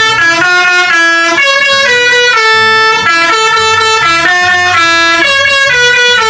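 Multi-tone Indonesian 'telolet' bus horn playing a loud melody. Steady horn notes step up and down in pitch every fraction of a second, with several tones sounding together.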